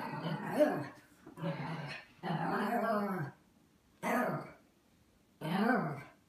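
Small dog growling and barking in play, in about five short drawn-out bursts with gaps between them.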